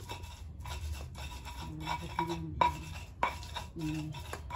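A stone pestle scrapes and grinds chilies for sambal in a flat stone mortar (cobek and ulekan). The scraping is steady, with a few sharp knocks of stone on stone, the loudest about two and a half and three seconds in.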